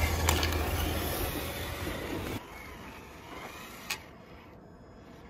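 Traxxas TRX-4 RC crawler's electric motor and drivetrain running as it crawls over rocks, with a low rumble over it. The sound drops suddenly to a much quieter level about halfway through, with a single sharp click a little later.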